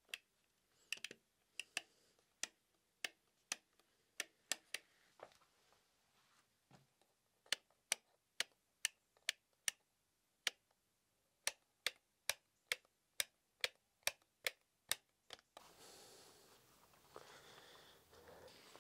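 A wall light switch being flicked on and off: sharp single clicks, scattered at first, then a steady run of about two a second that stops abruptly near the end.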